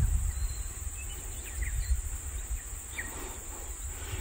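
Steady high-pitched chirring of insects over a low wind rumble on the microphone, with a few faint short chirps in the middle.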